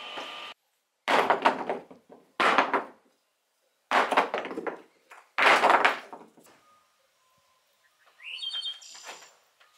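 Small cut wooden blocks falling onto a wooden plank floor: four loud clattering thuds about a second apart, each a quick run of knocks. Fainter clicks follow near the end.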